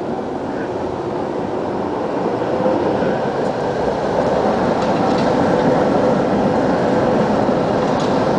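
Two-car Tatra T3 tram set rolling past close by on street track, its wheel and running noise growing louder as it nears, with a faint steady whine in it.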